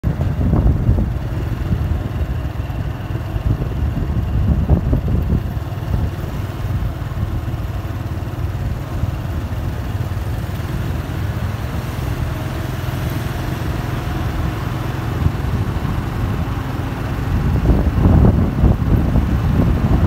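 Low rumbling road and wind noise from a moving vehicle, with wind buffeting the microphone. It swells in gusts about four seconds in and again near the end.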